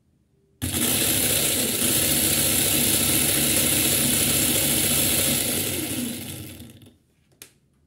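775 DC motor switched on and driving the homemade sprocket and motorcycle chain, a loud steady mechanical whir with a hum underneath. It starts suddenly about half a second in, runs steadily for about five seconds, then winds down to a stop.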